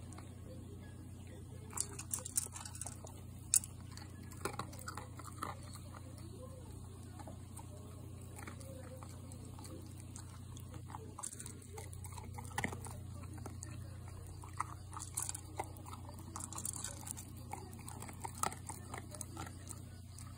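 An American Cocker Spaniel eating dry kibble from a bowl: irregular crunching and chewing with sharp clicks, over a steady low hum.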